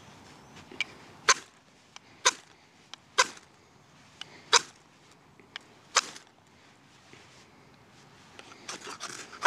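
Ferro rod scraped hard with a steel striker, throwing sparks onto a tinder bundle to light a fire: five sharp rasping strikes about a second apart, then a quick flurry of shorter scrapes near the end.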